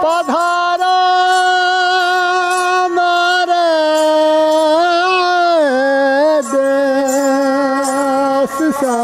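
A man sings a Rajasthani folk melody in long held notes with small wavering ornaments, accompanied by a ravanahatha, a bowed folk fiddle. The pitch steps down about two-thirds of the way through.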